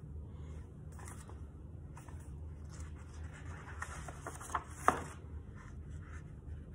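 Pages of a large paperback picture book being turned and handled: soft paper rustling and rubbing, with a sharp tap about five seconds in.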